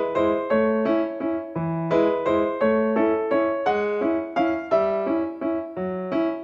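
Background music: a gently repeating piano or electric-piano melody of plucked-sounding single notes, about two to three a second.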